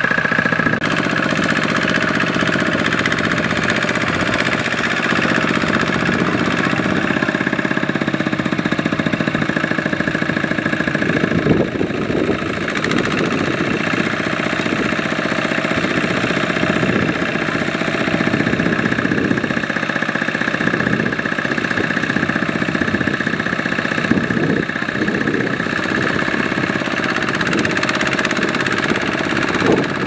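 Two-wheel walking tractor's single-cylinder diesel engine running continuously under load as it tries to drive its mud-caked wheels and a loaded rice-sack trailer out of deep mud. The note is steady at first, then turns rougher and more uneven after about twelve seconds.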